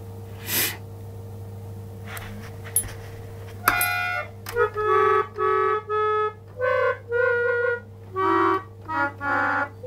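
Small toy electric organ sounding a string of short, steady chords, each about half a second long with brief gaps, as a dog presses its keys, starting about four seconds in after a low steady hum.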